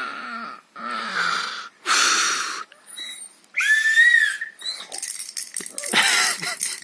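A dog blowing into a small whistle: breathy, wheezy puffs, then one clear whistle tone about four seconds in.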